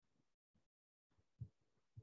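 Near silence, broken by a few faint, brief low blips, the strongest about one and a half seconds in.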